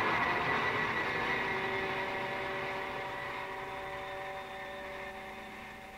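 Abstract noise music from a 1983 cassette: a dense noisy wash drops away, leaving a cluster of steady held tones, a sustained drone that slowly fades out.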